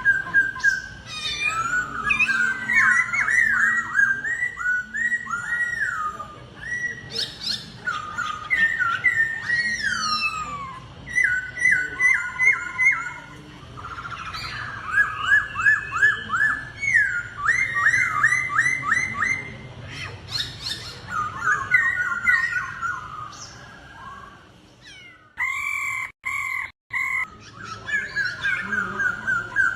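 Laughingthrush (khướu) singing in loud, rapid whistled phrases, each a quick run of repeated or gliding notes, in the combative style kept birds use in singing contests. Near the end the song breaks for a short steady two-pitch note cut by brief dropouts.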